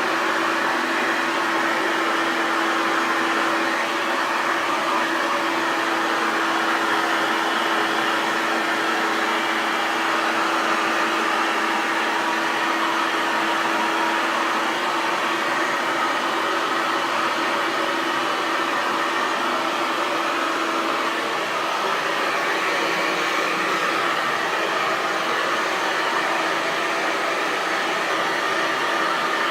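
Hair dryer running continuously: a steady rush of blown air over the motor's even hum, with the hum fading somewhat about two-thirds of the way through.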